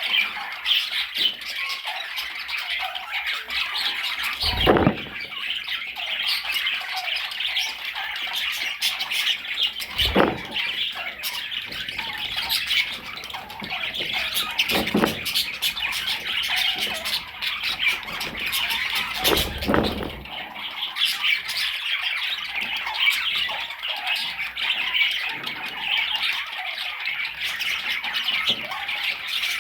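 A flock of pet budgerigars chattering and squawking without pause. Four dull thumps sound at roughly five-second intervals.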